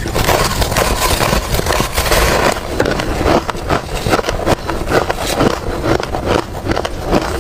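Ice being crunched and chewed close to the microphone: a dense crackling burst over the first two seconds or so, then a run of sharp, uneven cracks and crunches as the pieces are chewed.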